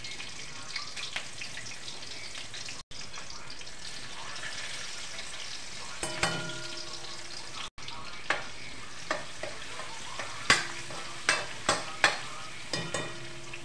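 Oil sizzling steadily in a metal kadhai as cumin seeds and green chillies fry for a tempering. In the second half a metal ladle stirs, clinking sharply against the pan several times.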